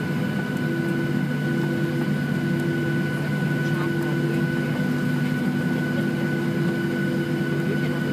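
Boeing 737-700's CFM56-7B jet engines at taxi idle, heard inside the cabin: a steady low drone with a thin, constant high whine over it.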